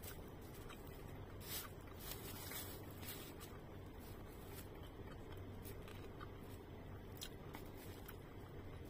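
Faint eating sounds: a plastic spoon scraping and tapping on a plate, with a few short sharp clicks, and chewing, over a low steady hum.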